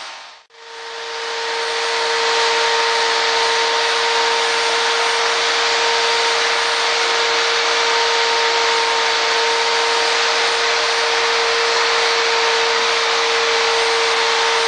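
Electric polishing machine working a bronze sculpture, its motor running steadily with a constant hum over a loud rubbing hiss. The sound drops away about half a second in and fades back up over the next couple of seconds.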